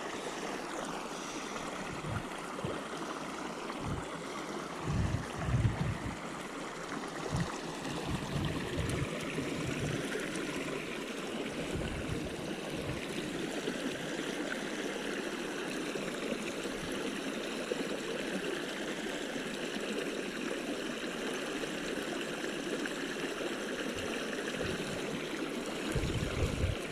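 Mountain trout stream flowing steadily, with a few short low thumps now and then.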